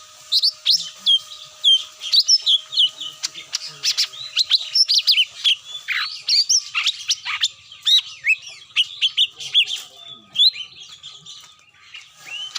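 Bird-lure call of the cucak mini: a dense, fast stream of short, high chirps and whistled notes, many overlapping, without a break.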